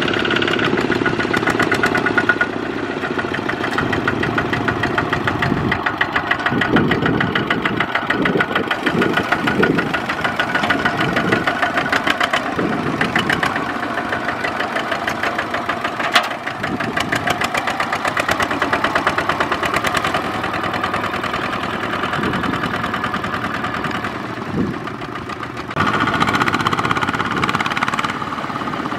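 Kubota ZT140 single-cylinder diesel engine of a two-wheel walking tractor running under load, a steady fast knocking beat of firing pulses as the machine works through the mud. One sharp knock stands out a little past halfway.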